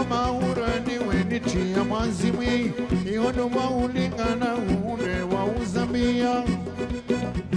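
Live twarab band music with a steady dance beat of drum strokes under a wavering lead melody.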